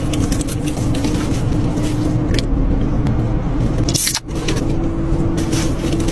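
Steady rush and low hum of a car's running engine heard inside the cabin. About four seconds in, a short sharp hiss comes as a drink can is opened.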